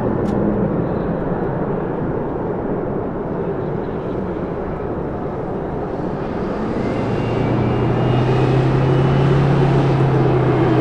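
B-1B Lancer's four turbofan engines at takeoff power during its takeoff roll: a steady, heavy jet noise that grows louder in the second half, where a low hum comes in as the bomber lifts its nose.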